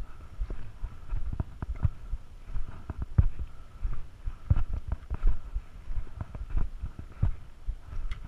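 Footsteps thudding and scuffing on a dry, dusty dirt trail, mixed with the sharp taps of trekking poles striking the ground, in an irregular walking rhythm of one or two impacts a second.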